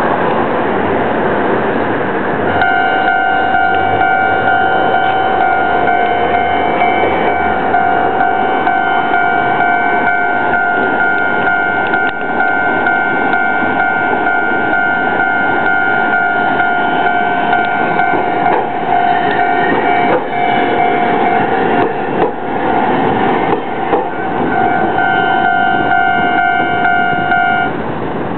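Railway level-crossing warning alarm ringing at a fixed pitch over the rumble of Hankai Railway streetcars passing. The alarm starts about two and a half seconds in, thins out briefly in the middle, and stops near the end.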